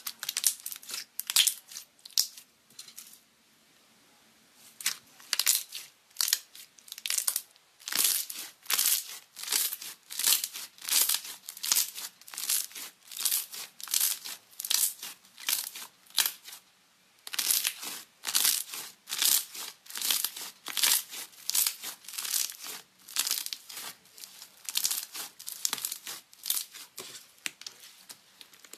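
Slime being kneaded and stretched by hand, giving a run of crisp crackles and pops about two a second. There is a short pause around the third second and another just past the middle.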